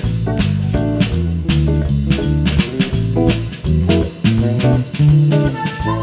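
Instrumental jazz jam: guitar and bass guitar playing over a drum kit, with a flute coming in on a long held note near the end.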